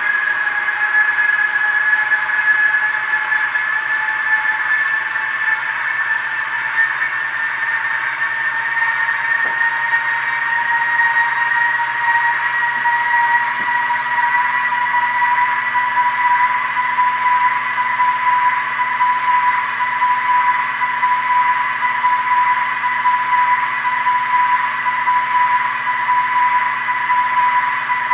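Electric high-speed train sound from the ESU LokSound decoder in a Mehano H0 Thalys PBKA model, playing through the model's small speaker. It is a steady traction whine that rises slowly in pitch, over a hiss of running noise.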